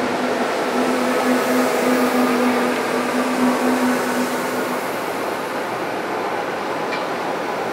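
Berlin U-Bahn H97 train running past along the platform: steady rushing rail and wheel noise. A steady electric hum from its traction drive stops about halfway through.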